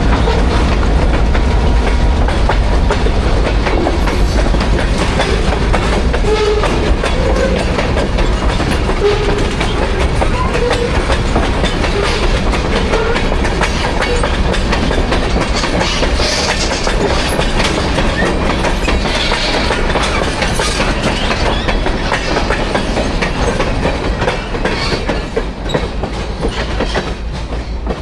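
Freight train cars rolling past, wheels clacking over the rail joints over a steady low rumble, which starts to fade over the last few seconds.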